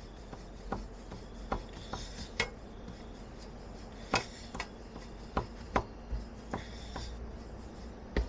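Wooden rolling pin (belan) rolling out roti dough on a rolling board (chakla), giving irregular light knocks and clicks.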